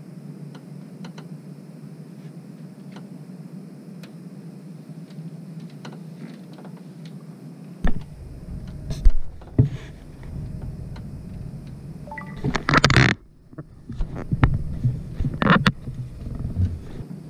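A steady low hum with faint irregular ticks. About halfway through it gives way to a run of knocks, thumps and short bursts of rubbing noise as people move about on the boat's deck, the loudest a few seconds before the end.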